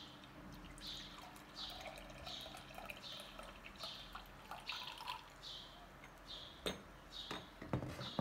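Tea pouring faintly from a ceramic teapot into a ceramic mug, with soft high ticks repeating about twice a second. A few ceramic knocks near the end as the teapot is set down on the table.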